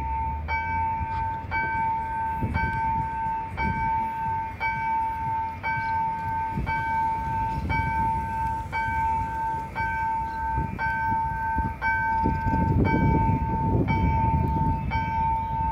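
Railroad level-crossing warning bell ringing about once a second, a steady high ring, as it does while the barriers are down for an approaching train. A car drives past near the end.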